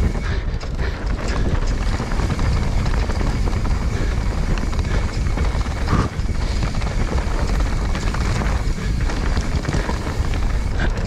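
Wind rushing over a handlebar-mounted action camera's microphone as a mountain bike rolls fast down a dirt trail, mixed with tyre noise and the rattle of the bike over small bumps. There is a sharper knock about six seconds in.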